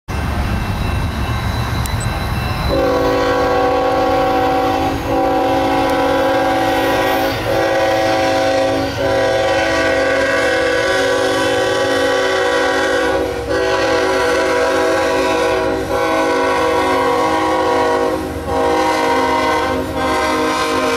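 Diesel freight locomotive's air horn sounding a multi-note chord, starting about three seconds in and held in a run of long blasts broken by brief gaps. Under it is the low rumble of the approaching train.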